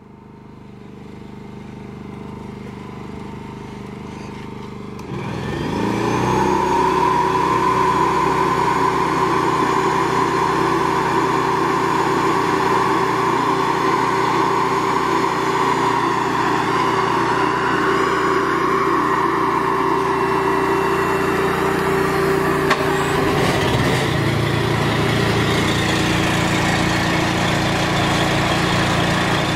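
Machinery on a trailer-mounted hot-water pressure washer rig running steadily. About five seconds in, a second machine starts, climbs quickly in pitch and settles into a steady whine over the engine running. The whine drops away about twenty-four seconds in while the low running goes on.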